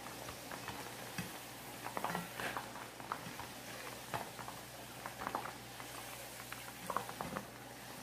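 Cornstarch-coated chicken pieces deep-frying in hot oil: a steady bubbling hiss with scattered pops and crackles, a few louder clusters of crackling along the way.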